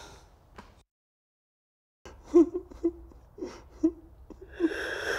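A man sobbing: short whimpering sobs and catches of breath, with a sharp inhale near the end. The sound drops to dead silence for about a second before the sobbing starts.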